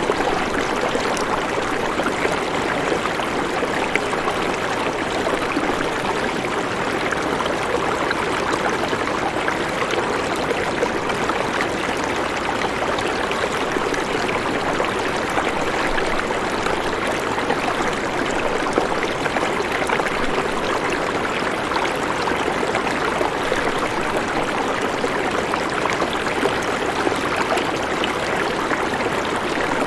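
Steady rushing water, a dense even hiss with no breaks.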